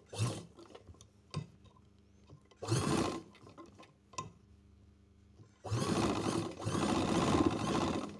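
Sewing machine stitching fabric and buckram around a curved round neckline: a few short spurts of stitching while the cloth is turned, then a steady run of about two and a half seconds near the end.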